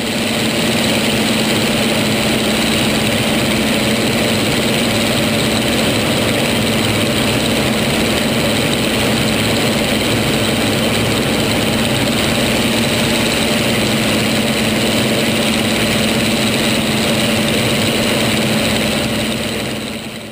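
Piston engine and propeller of a single-engine aircraft in flight, heard from inside the cockpit: a steady drone with a constant low hum. It swells up over the first second and fades out near the end.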